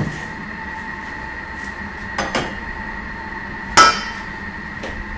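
A few sharp knocks and clinks of bowls and utensils being handled on a kitchen counter, two close together about two seconds in and the loudest about a second and a half later, over the steady hum of a Thermomix TM6 running at low speed while it heats.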